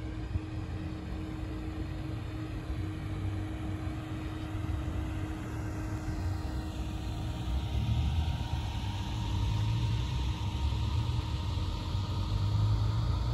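Outdoor road-traffic rumble with a faint steady hum under it. It grows louder and hissier from about halfway through.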